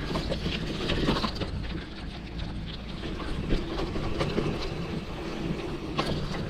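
Mountain bike rolling along a dirt trail: a steady rumble of tyres and wind on the microphone, with scattered rattles and clicks from the bike.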